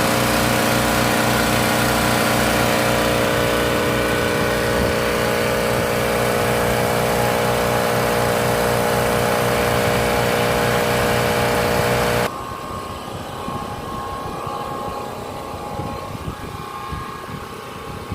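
Electric piston air compressor running loud and steady as it fills its tank on power from an open-frame portable generator. About twelve seconds in the compressor cuts out with the tank charged, and the generator's engine runs on, much quieter.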